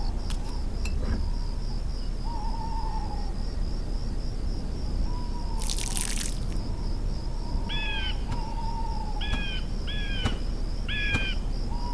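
Night ambience: a steady pulsing insect chirr with soft owl-like hoots. About six seconds in there is a brief rushing swish as wooden window shutters are pushed open. Near the end come four short, falling bird calls.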